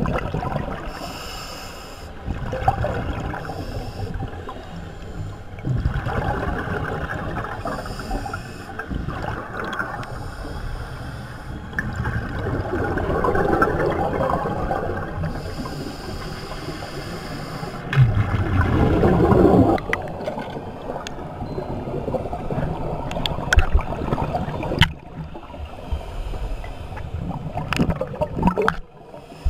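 Underwater scuba breathing: a regulator hissing on each inhale, a few seconds apart, and gurgling bursts of exhaled bubbles, the loudest about two-thirds of the way through. A few small clicks near the end.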